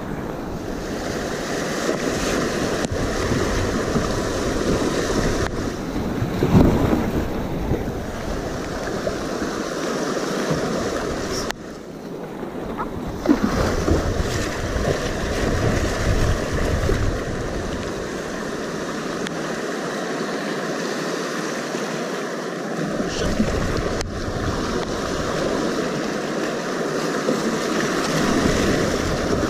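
Rushing whitewater splashing around a kayak and paddle as it runs a river rapid, with wind buffeting the camera's microphone. Louder splashes come at about six and thirteen seconds in.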